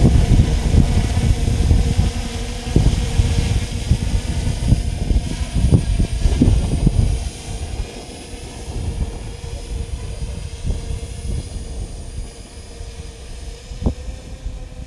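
Multirotor drone hovering and flying off, its motors and propellers giving a steady hum of even pitch. A rough low rumble sits under it, heavy for the first seven seconds or so and easing after, with one short click near the end.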